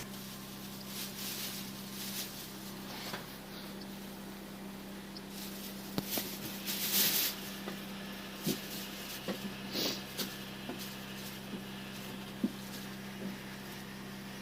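A steady low hum with a few scattered clicks and short rustling noises.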